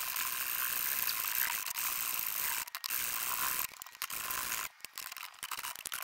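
Hacksaw blade cutting through a protruding metal bolt. The strokes make a steady rasping with a few brief pauses.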